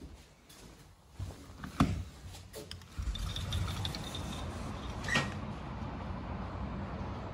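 A sliding balcony door clunks and knocks as it is opened, the loudest knock a little under two seconds in. From about three seconds in, a steady low rumble of outdoor city noise and wind takes over, with one more knock about five seconds in.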